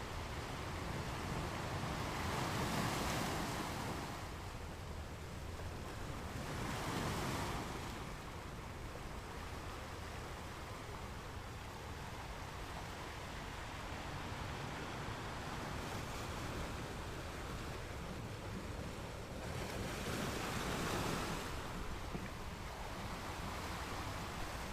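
Ocean surf: a steady rush of waves, with three louder swells of breaking water about three, seven and twenty seconds in.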